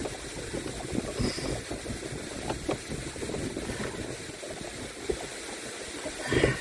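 Canoe being paddled: a rough rush of water and wind noise with irregular short knocks and splashes, and a louder burst near the end.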